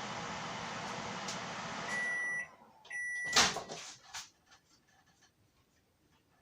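Microwave oven running with a steady hum that stops about two seconds in, followed by two beeps. Then the door clunks open, the loudest sound, with a few light clicks and knocks after it.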